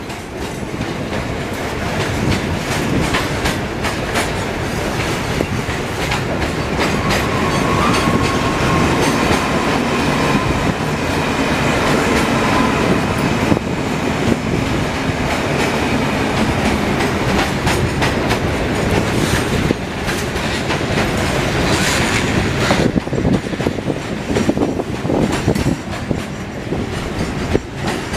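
Train rolling past at close range, its wheels clicking over the rail joints, with a faint squealing tone from the wheels for a few seconds about eight seconds in.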